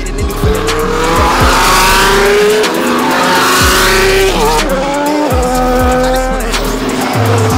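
Formula 1 cars' turbocharged V6 hybrid engines running at high revs. The pitch climbs steadily and drops back sharply at each upshift, several times over.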